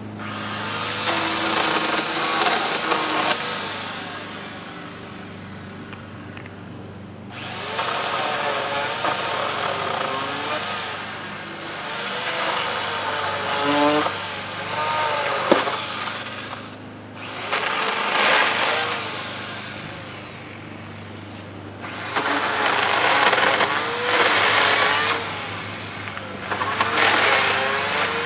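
Chainsaw cutting limbs in repeated bursts, its engine pitch wavering up and down as the chain loads in the wood, falling back to a quieter idle between cuts.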